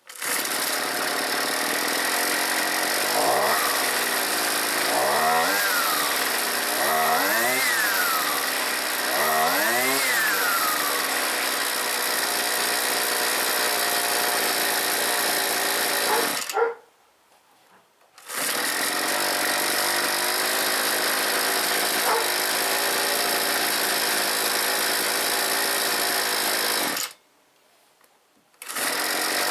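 Husqvarna 125R string trimmer's two-stroke engine running warm after a carburettor cleaning. About three seconds in, the throttle is opened four times, the pitch rising and falling with each one, and then the engine settles to a steady idle. The sound cuts out abruptly twice, for a second or two each time.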